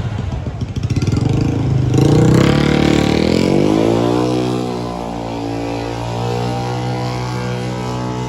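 A vehicle engine runs close by with a rapid low pulsing. About two seconds in it revs up, its pitch rising, then holds a steady higher pitch.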